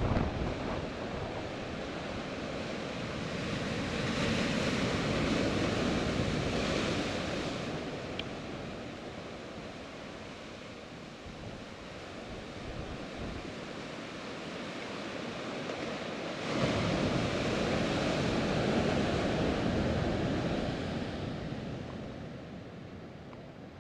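Ocean surf surging and breaking against rocks, a steady wash that swells twice: once a few seconds in and again, more suddenly, about two-thirds of the way through.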